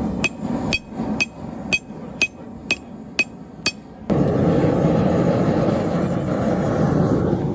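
Hammer striking metal on an anvil, about eight ringing blows at roughly two a second, as in hand forging. About four seconds in, a loud steady rushing noise cuts in abruptly.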